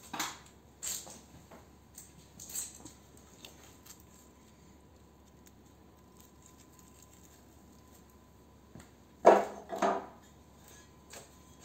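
Crumpled metal scraps from a stripped ballast clinking and rattling together in the hands, then two louder knocks about nine seconds in as they are put down on the wooden bench.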